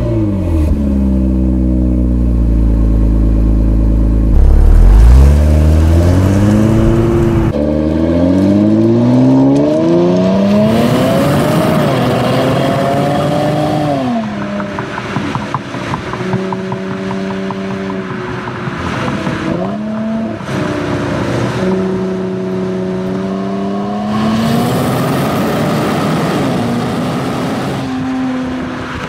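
Stock exhaust of a 2022 Infiniti Q50 Red Sport's 3.0-litre twin-turbo V6, revved while parked. The note sits steady, gets loudest about five seconds in, then climbs in several rising sweeps, holds at higher revs for stretches and falls back.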